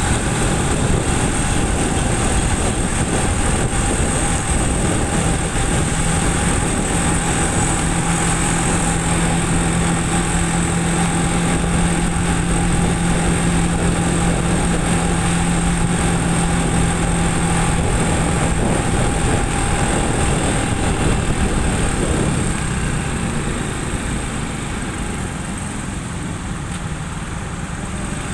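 Motorcycle riding in traffic: the engine runs with wind and road noise over the microphone, holding a steady hum for a stretch, then getting quieter about three-quarters of the way through as the bike slows behind a car.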